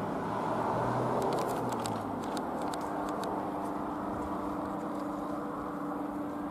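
Light aircraft's engine droning steadily overhead, its pitch settling onto a steady hum about two and a half seconds in. A run of faint clicks about one to three seconds in.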